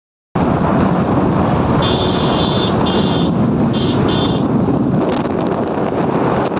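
Car driving on a wet road: a steady rush of road and wind noise that starts abruptly just after the beginning. A high-pitched tone sounds in several short stretches in the middle.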